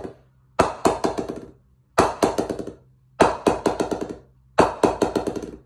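Wooden mallet dropped onto the face of a new A2 Coronet Grade 1 cricket bat and left to bounce: the tail of one drop, then four more. Each drop is a quick run of ping-like taps that come faster and fade as the mallet settles. The lively rebound and clear ping are the sign of a responsive blade.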